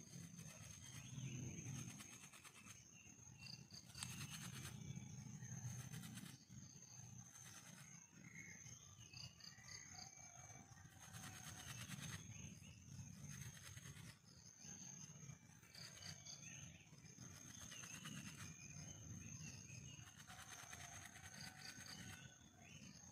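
Wooden hand-drill spindle spun between the palms against a two-stick hearth: a dry rubbing, scraping friction sound that swells and fades in repeated strokes as the spindle is worked toward an ember.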